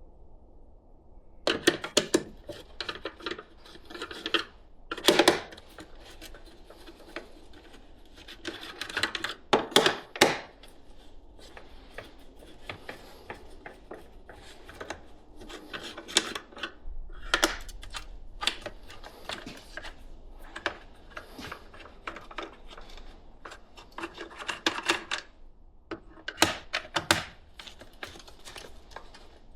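Bursts of small clicks, rattles and knocks from hand tools and plastic housing parts as a Milwaukee M18 power head is taken apart by hand, with a couple of sharper knocks among them.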